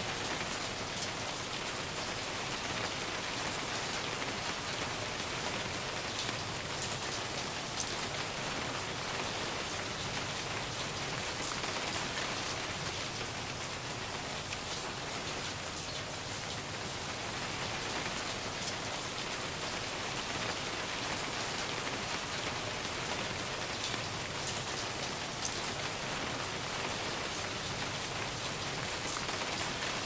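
Steady autumn rain falling, with scattered close drops ticking now and then, the sharpest about eight seconds in.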